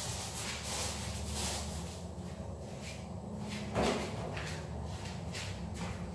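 Paint roller on an extension pole being rolled over a freshly painted interior wall in a run of repeated swishing strokes, louder in the first two seconds and quieter after. One brief, louder bump comes just before four seconds in.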